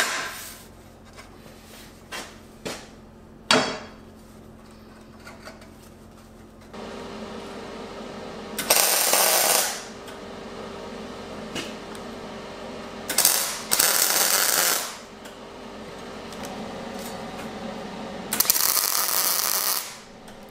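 A few clanks and knocks of a steel sheet being fitted against angle iron on a steel table, then three MIG tack welds, each one to two seconds of steady crackling arc.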